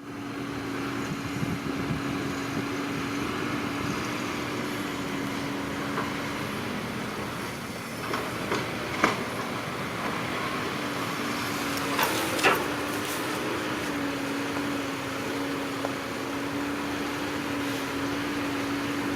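Heavy earthmoving machine's diesel engine running steadily with a constant hum, with a few sharp metallic knocks about halfway through and again a little later.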